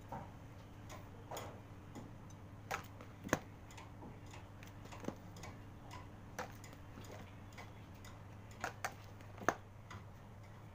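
Irregular sharp clicks and taps, a second or two apart with two close together near the end, from a metal palette knife knocking and scraping while whipped cream is spread over a cake on a turntable. A steady low hum runs underneath.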